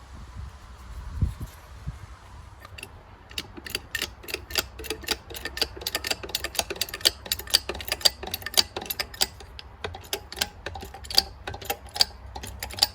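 Ratchet wrench clicking rapidly and steadily, about four clicks a second, starting about three seconds in, as it is worked to drive the press that pushes a new hub into a boat propeller.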